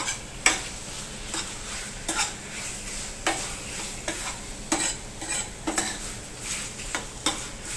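Metal ladle stirring and scraping prawns through thick ghee roast masala in a stainless steel pan, a scrape about once a second, over a faint sizzle of frying in ghee.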